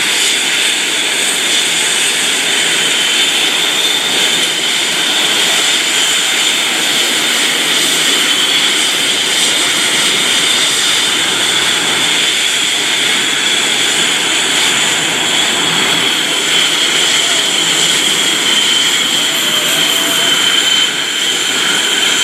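Jet engines of Blue Angels F/A-18 Hornets running at taxi power: a steady loud rush of noise with a high whine over it.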